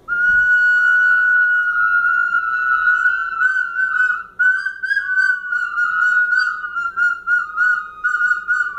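Several children blowing small plastic whistles together: a high-pitched tone that starts suddenly, held steadily at first, then from about halfway broken into short repeated toots, with a second, slightly lower whistle sounding alongside at times.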